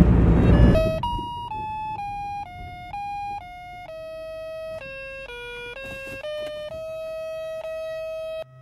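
Low road and engine rumble inside a moving car that fades out after about a second. Then an electronic monophonic Christmas music box plays a simple beeping tune, one note at a time, about two notes a second, and cuts off abruptly near the end.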